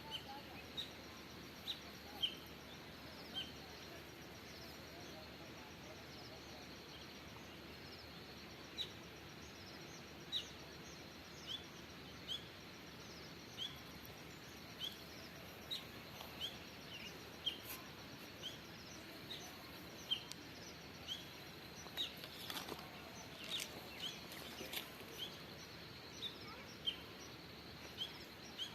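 A bird calling with short, sharp high chirps, repeated irregularly about once a second, over a steady background hiss of outdoor ambience.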